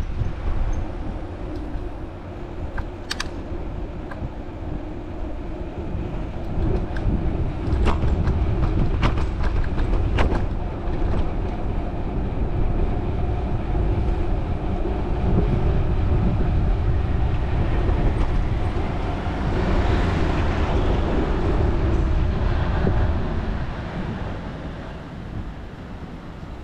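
Street noise heard from a moving bicycle: a steady low wind rumble on the microphone with traffic going by, and a few sharp clicks early on and again around eight to ten seconds in.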